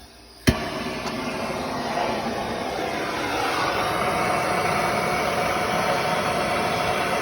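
A handheld soldering torch is clicked alight by its trigger igniter about half a second in. Its flame then burns with a steady rushing hiss, growing slightly louder about three seconds in.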